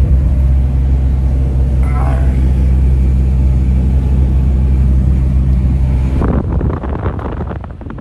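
Steady, loud low drone of a moving vehicle's engine and road noise. About six seconds in the drone gives way to uneven, gusty noise.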